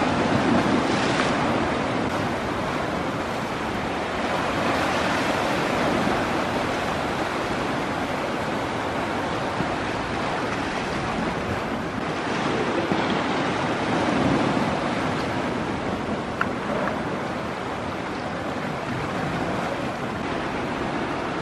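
Sea surf washing against a rocky shore, a steady rush that swells louder every several seconds as waves come in.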